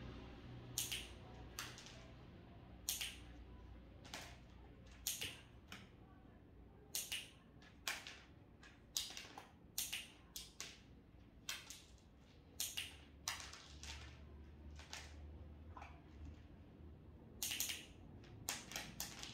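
Irregular short, sharp clicks and crackles, roughly one a second, from hands working at a plastic pet carrier with a small dog inside, handling treats.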